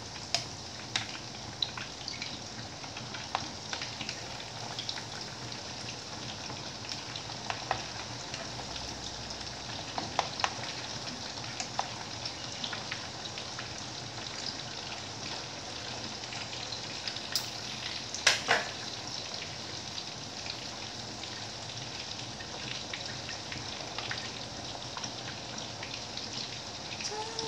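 Pork meat patties frying in hot oil in a frying pan: a steady sizzle with scattered crackling pops. There is one louder sharp knock about 18 seconds in.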